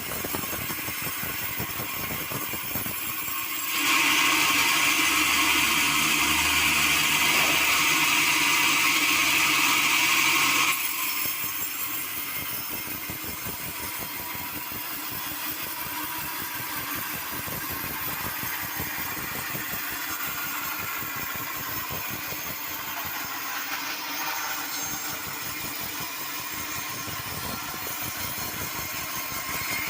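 Sawmill saw running, growing louder and higher-pitched for about seven seconds from about four seconds in as it cuts through teak.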